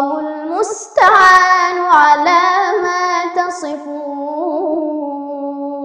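A girl's voice chanting Quranic recitation in a melodic tajweed style, stretching the syllables into long notes that waver in pitch, and ending on one long held note.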